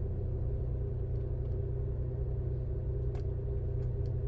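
Mini Cooper's engine idling steadily, a low even hum, with a few faint clicks.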